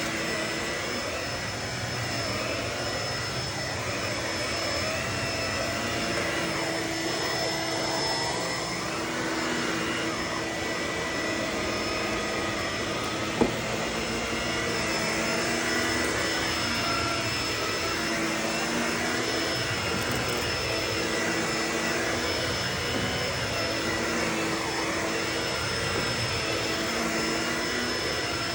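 Vacuum cleaner running steadily with a constant motor whine, picking up crunchy debris. There is one sharp click about 13 seconds in.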